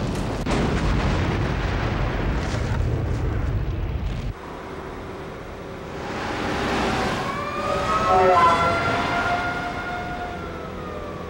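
Sound effects: a deep, continuous rumble of a building burning and exploding that cuts off suddenly about four seconds in. Then a car engine rises and runs past with a steady whine that sinks slightly in pitch near the end.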